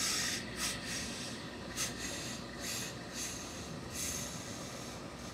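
Industrial steam iron hissing in several short spurts of steam while pressed straight down on a suit jacket's armhole to fuse the armhole tape.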